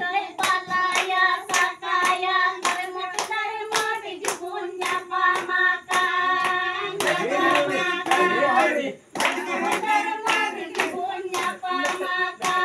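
Group of women singing together to steady rhythmic hand clapping, about three claps a second. The singing and clapping drop out briefly about nine seconds in.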